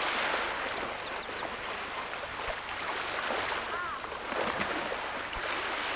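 Lake water splashing and lapping around people wading: a rushing noise that swells and fades every couple of seconds.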